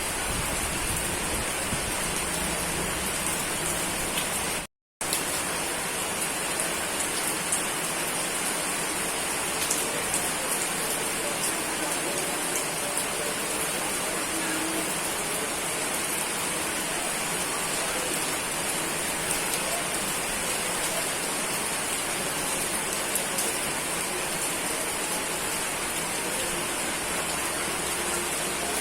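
Steady rain falling, an even hiss with scattered faint drop ticks. About five seconds in, the sound cuts out completely for a split second and then resumes.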